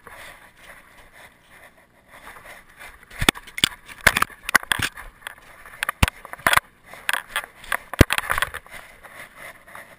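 Rustling, scraping and irregular sharp knocks from a dog-mounted camera as the dog runs through snow and brush, its paws crunching snow; the loudest knocks come a few seconds in and near the end.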